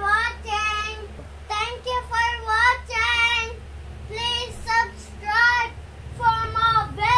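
A young child singing a tune in short held, wavering notes, in several phrases with brief breaks between them.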